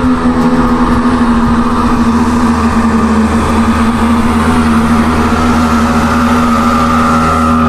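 Small motorboat's engine running at speed as the boat planes up the river toward the listener, a steady drone.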